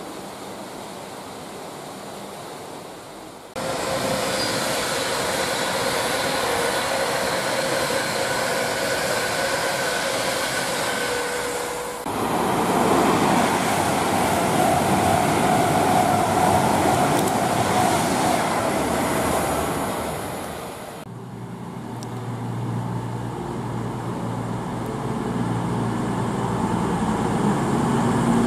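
Rain hiss for the first few seconds, then trains passing on the main line, wheels rumbling on the rails with a steady whine, the sound changing abruptly twice. Near the end a deep engine hum grows louder as another train approaches.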